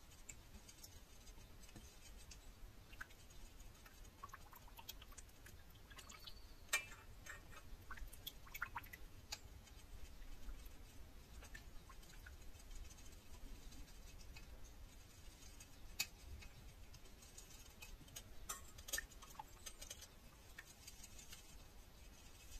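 Faint, irregular ticks and light scrapes of a small spatula stirring melted vegetable wax in a stainless steel bowl, with a few sharper clicks against the metal. The wax is being stirred to cool it.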